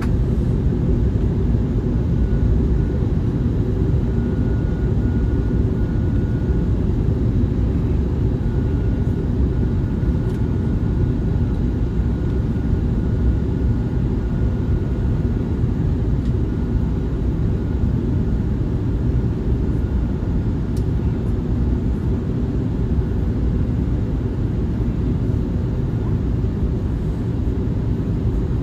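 Airliner cabin noise from a window seat of an Airbus A321neo on approach: its Pratt & Whitney PW1100G geared turbofan engines and the airflow make a steady low rumble. A faint thin whistle comes and goes in the first half.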